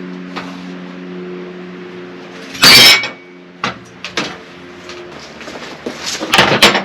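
Clicks and knocks from PVC pipe fittings and tools being handled, with one loud, short scrape about two and a half seconds in, over a steady low hum that fades out near five seconds.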